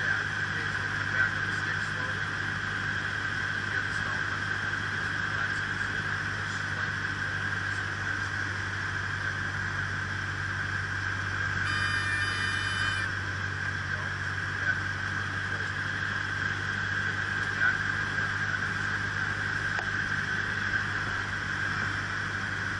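Cessna 152's four-cylinder Lycoming engine and propeller running steadily in flight, heard as a constant drone inside the cockpit. A brief buzzing tone sounds about twelve seconds in.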